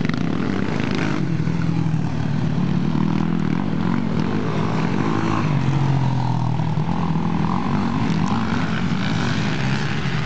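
Quad bike engines racing on the track, revving continuously with the pitch stepping up and down as the riders accelerate and change gear.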